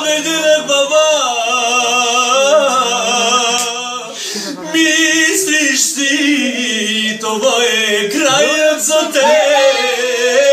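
A man singing a Christian worship song in a strong voice, drawing the melody out with the pitch sliding and wavering between the words, with short breaks about four and eight seconds in.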